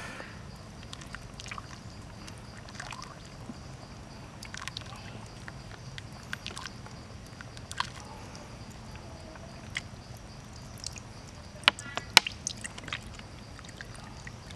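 Wooden ladle stirring and scooping rice porridge in a clay pot, the liquid sloshing, with scattered light clicks and knocks and two sharper clicks close together about twelve seconds in.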